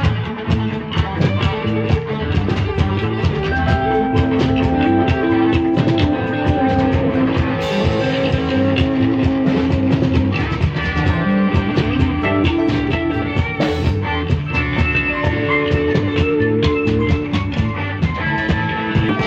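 A rock band playing: guitar over a drum kit keeping a steady beat, with long held notes above.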